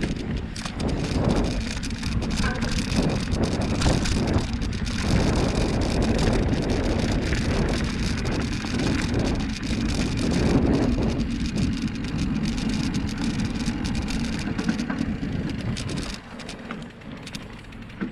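Bicycle riding along a cleared dirt trail: tyres crackling and rattling over the ground with a dense run of small clicks, and wind buffeting the microphone. It quietens near the end as the ride eases.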